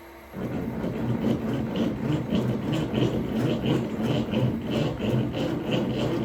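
CNC machine running, its moving head making a repeating pulse of about three strokes a second over a low steady rumble.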